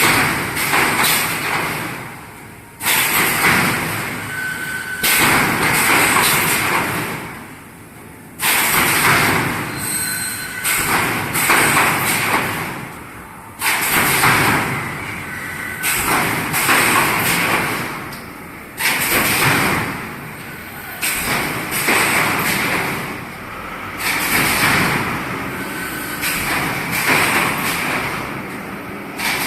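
3D panel wire mesh welding machine running through its working cycle over and over: a sudden loud mechanical stroke about every two and a half to three seconds, each one tailing off before the next.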